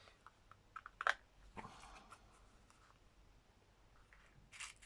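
Faint small clicks and rustles of beads and craft bits being handled and picked through, with a sharper click about a second in and a short scratchy rustle near the end.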